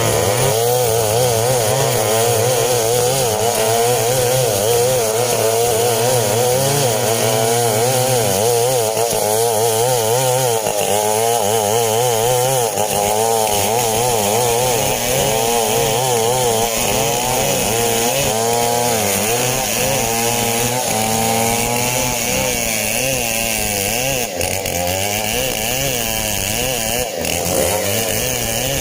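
STIHL two-stroke chainsaw running hard and cutting through coconut-palm wood, its engine pitch wavering up and down as the chain loads and frees in the cut.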